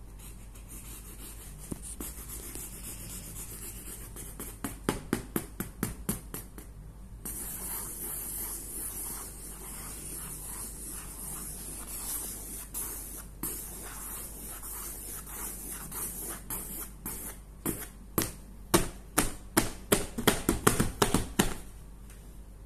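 Marker scribbling on paper, scratchy rubbing strokes with two bursts of rapid back-and-forth strokes, about five seconds in and again near the end.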